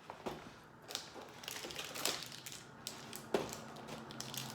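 Cardboard packaging of a Lego advent calendar being handled and torn: irregular crinkling and rustling with a few sharp clicks and snaps.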